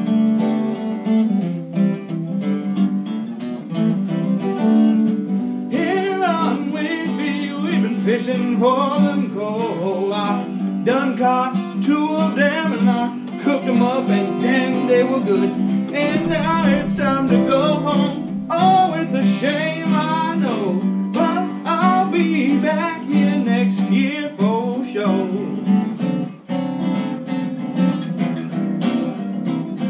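A man playing an acoustic guitar and singing along. The guitar plays alone for the first few seconds, the voice comes in about six seconds in, and the guitar carries on alone near the end.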